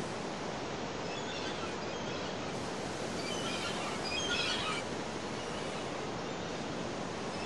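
Steady rushing noise with a few faint, high chirps in the middle, the loudest cluster a little past halfway.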